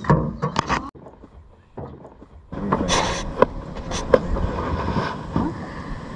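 Handling noise of fishing gear in a small boat: knocks and bumps as a rod and reel are picked up, with a few sharp clicks and a rustling stretch in the middle.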